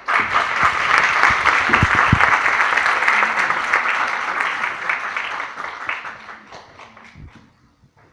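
Auditorium audience applauding. The clapping breaks out suddenly, stays full for about six seconds, then thins out and fades away near the end, with a couple of low thumps about two seconds in.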